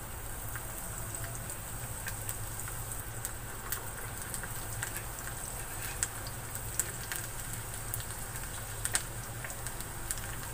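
Chopped garlic frying in hot ghee with cumin seeds in a small tadka ladle: a steady sizzle with scattered pops and crackles.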